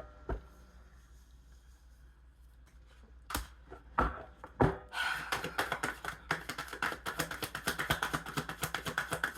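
Tarot cards being handled: a few separate sharp taps of cards, then from about halfway a fast continuous flutter of cards being shuffled.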